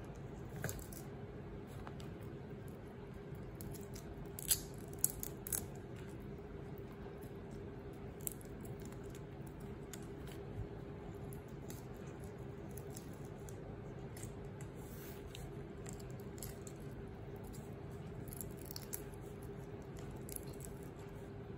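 Scattered small clicks and crackles of raw shrimp shells and heads being pulled off by hand, over a steady low hum.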